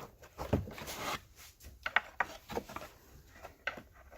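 Screwdriver prying and scraping at the plastic retaining tabs of a car's rear bumper cover, with a scrape about a second in and several sharp clicks and knocks.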